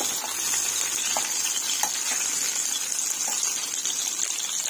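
Eggplant omelette with egg and corned beef frying in hot oil in a pan: a steady sizzle, with a few faint clicks.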